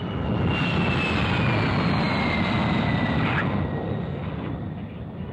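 De Havilland Vampire jet fighter flying past: a high engine whistle sliding slowly down in pitch over a loud rushing noise that fades toward the end.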